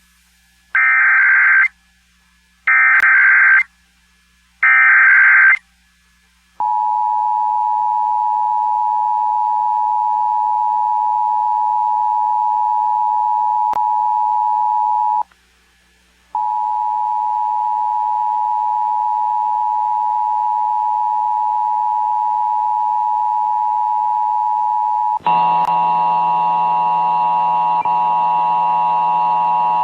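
Three short bursts of Emergency Alert System header data screech, each about a second long, followed by the steady EAS two-tone attention signal. The tone breaks off for about a second roughly midway and resumes. Near the end it turns rougher and buzzier, with a low hum under it.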